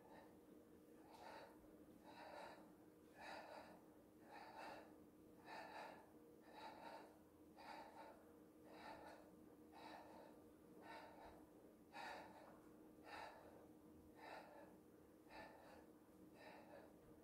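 Faint, rhythmic breaths from a person exercising, about one breath a second. A faint steady hum runs underneath.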